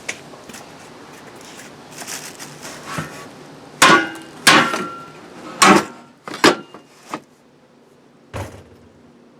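Heavy steel truck-bed crossbars clanking against each other as they are handled and set down: about five sharp metal knocks, some with a short ring, between about four and seven seconds in, then a duller thud near the end.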